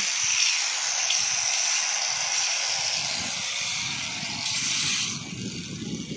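Steady high hiss that drops away about five seconds in.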